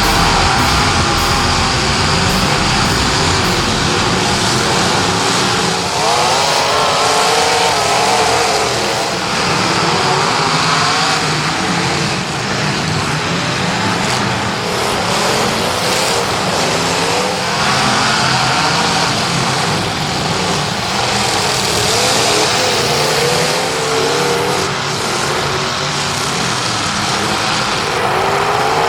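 Engines of several demolition derby cars revving hard as they race around the track, their pitch repeatedly rising and falling over a steady loud roar of the field.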